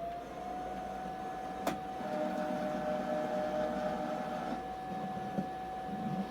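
Cricut cutting machine running as it cuts a label: a motor whine that climbs and settles to a steady pitch in the first half-second, with one sharp click about 1.7 seconds in.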